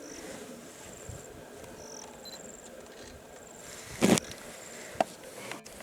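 Outdoor ambience with high thin chirps, typical of insects, repeating over a steady low hiss. A short, loud, sharp noise comes about four seconds in, followed by a fainter click about a second later.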